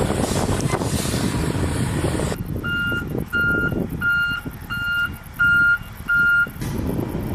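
Backup alarm of a military HEMTT fuel tanker truck beeping six times at a steady pace, about one and a half beeps a second, over the truck's running engine. Before the beeps, a steady engine rumble.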